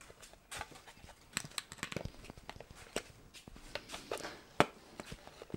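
Quiet, irregular plastic clicks and taps as an electric toothbrush handle is fitted into a clear plastic travel case, with one sharper click a little past four seconds in.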